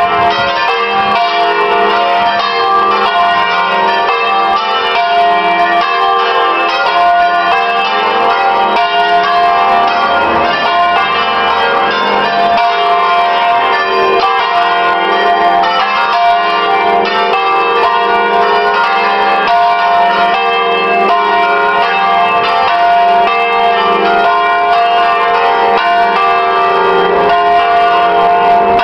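Six swinging church bells, a ring with its largest bell in F3, sounding all together in a full peal (plenum), their strokes overlapping in a continuous, dense ringing. This is the festive plenum rung as the call to Sunday Mass.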